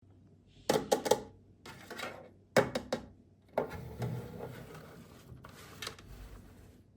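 Sharp clicks and taps in two quick clusters, then a few seconds of rustling and scraping: a toy playset and its packaging being handled as it is unboxed.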